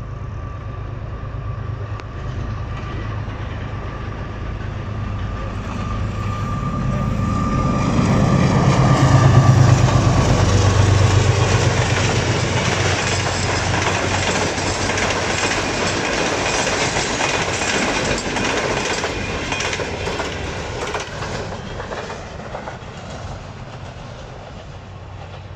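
GE U20C diesel-electric locomotive passing with its engine running, loudest about nine to ten seconds in, followed by the passenger coaches' wheels running over the rails with a steady clatter that fades near the end.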